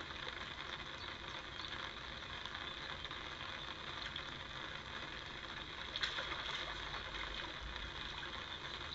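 Steady outdoor background hiss with a faint high-pitched band. A brief burst of noise comes about six seconds in, followed by a low rumble for a second or two.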